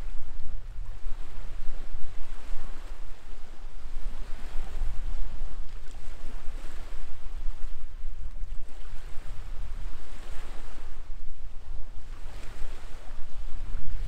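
Wind buffeting the microphone: a heavy, unsteady low rumble, with a rushing hiss that swells every couple of seconds.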